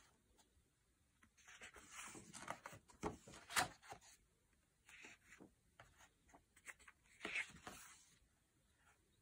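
Sketchbook pages being turned and smoothed by hand: several bursts of paper rustling, with a sharp paper flap about three and a half seconds in.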